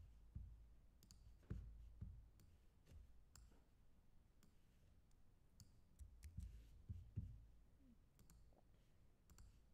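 Near silence with faint, scattered clicks and light knocks from computer work at a desk, at irregular intervals.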